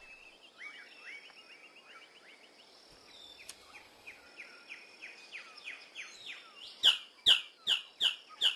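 Faint, quick chirping over a quiet forest hiss, then near the end a male magnificent bird of paradise breaks into a loud run of short, sharp calls, about two and a half a second.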